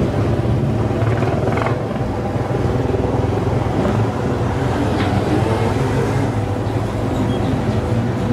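Motorcycle engine running steadily at an even speed, a constant low hum with wind and road noise over it.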